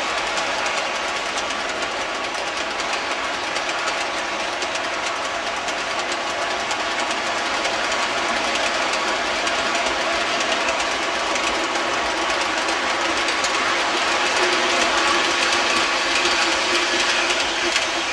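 O-gauge model train of covered hopper cars rolling past on three-rail track: a steady rumble of wheels with fine, constant clicking, the caboose going by near the end.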